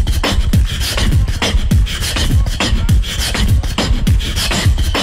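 Looped beatbox beat played back through a loopstation, with deep bass kicks that drop in pitch two to three times a second under sharp hi-hat and snare clicks. The beat drops in suddenly at the start after a brief pause.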